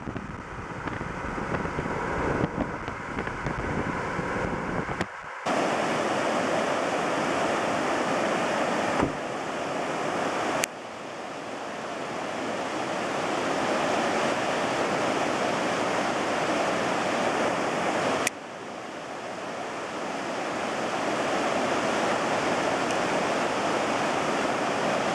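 For about the first five seconds, wind and road noise from a moving vehicle. Then, after an abrupt cut, the steady rush of the Pemigewasset River's shallow rapids running over rocks, with a few sudden jumps in level where the footage is cut.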